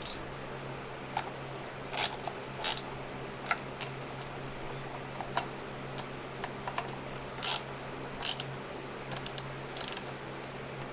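Irregular metallic clicks and clinks of a wrench working the bar nuts on a chainsaw's side cover, over a steady low hum.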